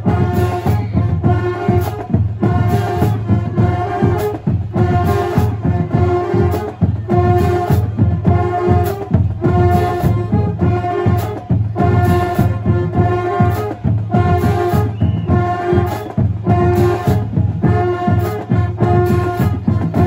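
Marching band of sousaphones, trombones and trumpets with drums, playing a loud riff of short brass chords repeated over a steady drumbeat.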